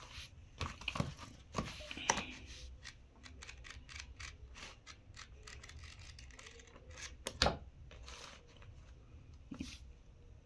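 Paper pages of a paperback book being flipped and riffled by hand: a run of quick papery flicks and rustles, with one louder slap about seven seconds in.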